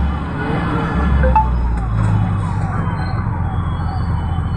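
Street traffic: a steady low engine rumble, with a small electronic tone that falls in pitch and repeats about three times a second over it.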